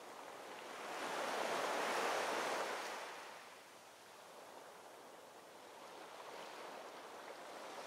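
Small ocean waves washing ashore, a soft rush of surf that swells about two seconds in, ebbs, and builds again toward the end.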